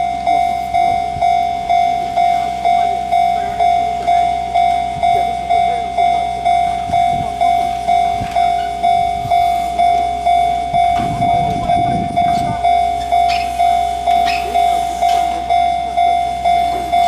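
Railway level-crossing warning bell ringing continuously: a single electronic bell tone repeating evenly at about one and a half strikes a second.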